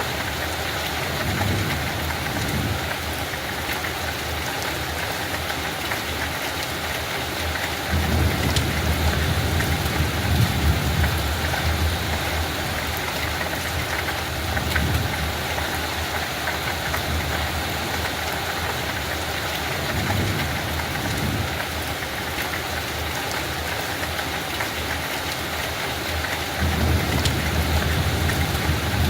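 Steady light rain falling, an even hiss with the fine patter of individual drops. Under it runs a low rumble that swells louder for a few seconds, once about eight seconds in and again near the end.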